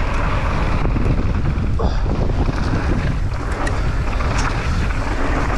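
Steady, loud wind rushing over the microphone during a fast mountain-bike descent, over a low rumble of tyres rolling on a dry, sandy dirt trail.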